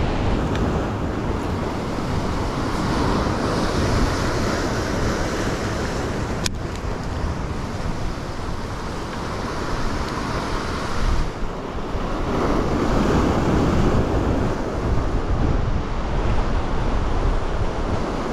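Sea surf washing over rocks with wind buffeting the microphone, a dense steady rush. A single sharp click about six and a half seconds in.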